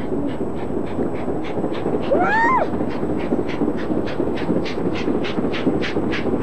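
LMS Princess Royal class Pacific steam locomotive working hard, its exhaust beating rapidly and evenly at about five beats a second. A brief pitched cry rises and falls about two seconds in.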